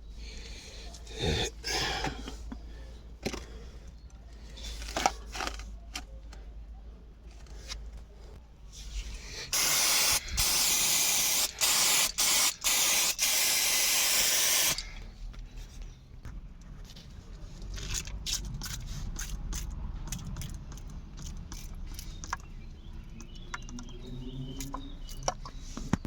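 Aerosol spray can hissing in one burst about five seconds long, starting about ten seconds in and broken by a few brief stops of the nozzle, during rear brake work. Around it are scattered clicks, knocks and scrapes of tools and parts.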